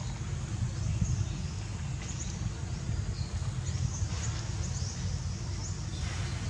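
Outdoor ambience: a steady low rumble with short, high-pitched bird chirps scattered throughout.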